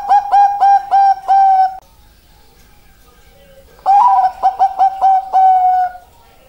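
Bangkok-type zebra dove (perkutut) singing its cooing song. The first phrase, a run of short clipped coos ending in longer held notes, finishes in the first two seconds. After a pause a second phrase starts about four seconds in: a held coo, a quick string of clipped notes, and a long final coo.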